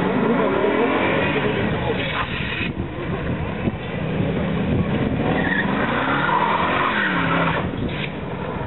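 BMW sedan drifting in circles on asphalt: its engine revs rise and fall twice, over a steady squeal of skidding tyres.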